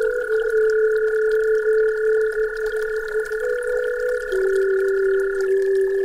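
Layered, steady, pure electronic sine tones, the meditation 'frequency' kind, held for several seconds: two in a middle register and a pair higher up. A new, slightly lower tone comes in about four seconds in, and one of the high tones stops near the end.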